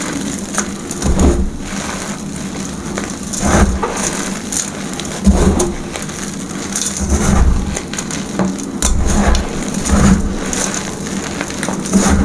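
Powdery chalk being crushed and squeezed by hand: a continuous crackly crunch, with a soft thump and a louder swell at each press every second or two.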